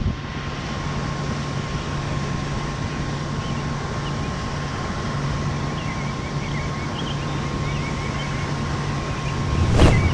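A boat's motor running steadily, a low hum over a wash of noise. Near the end a loud whoosh sweeps up and cuts off.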